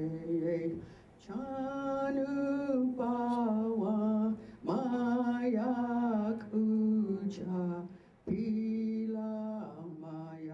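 Unaccompanied singing: a voice holding long, slightly wavering notes in phrases of a few seconds each, with short breaks between them, getting quieter near the end.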